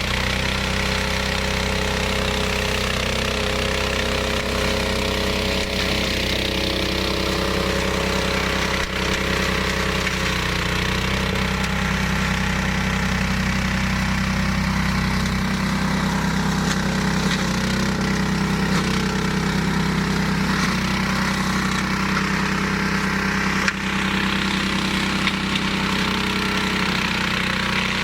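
A 15 hp Hyundai engine on a flail mower running steadily.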